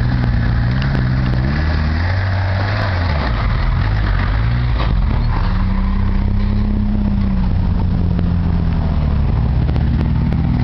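Off-road vehicle engine running and revving: its revs drop over the first few seconds, rise again about halfway through and then ease off.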